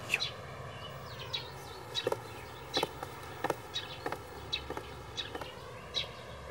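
Footsteps on hard ground: short sharp steps about every half-second to second, some in quick heel-toe pairs, over a faint steady outdoor background.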